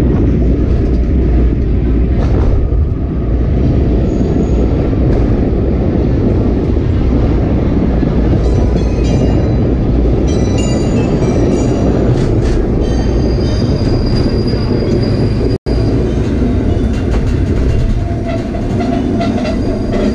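Sagano Romantic Train trolley car rolling on its rails with a loud steady rumble; from about halfway, high thin wheel squeals ring out over it.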